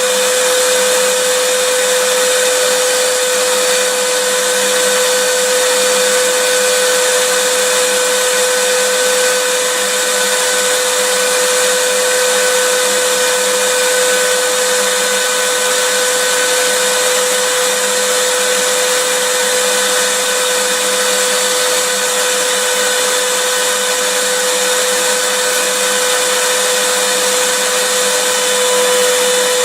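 Vacuum cleaner motor running continuously: a steady hiss of rushing air under a constant motor hum, never changing in pitch or level.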